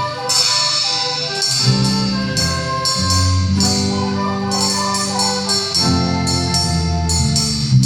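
A live band playing an instrumental passage: held bass notes changing every second or so under a melodic line, with percussion.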